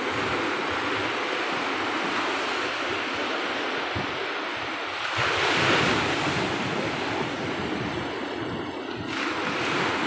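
Sea surf breaking and washing up a sandy beach: a continuous rush of water and foam that swells louder about five seconds in as a wave comes in.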